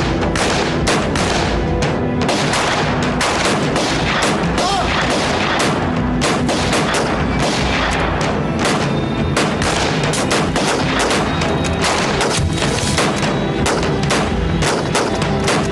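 Heavy rifle gunfire, many shots cracking in quick, overlapping succession as a sustained exchange of fire, with music underneath.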